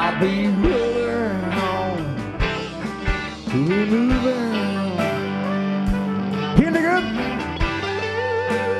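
Southern rock band playing live: electric guitars, bass and drums, with a lead line of notes that bend and slide up and down in pitch over a steady beat.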